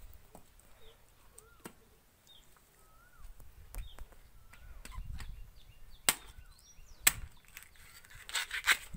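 Billhook knife chopping into palmyra palm fruits (nungu): a series of sharp chops, the two loudest about six and seven seconds in, then a quick flurry of cuts near the end.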